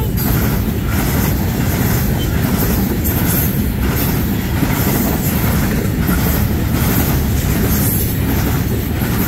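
Loaded Herzog ballast hopper cars of a freight train rolling past at close range: a steady heavy rumble of steel wheels on rail, with clatter now and then.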